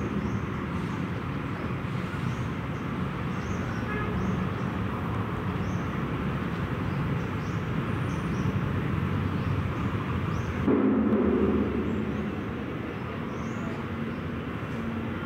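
Steady outdoor background rumble like distant traffic, with faint short high chirps every second or so, growing louder abruptly for about a second and a half around eleven seconds in.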